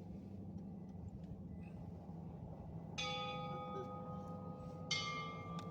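San Xavier Mission church bell struck twice, about two seconds apart, each stroke ringing on and fading into the next. The ringing of an earlier stroke is still dying away at the start.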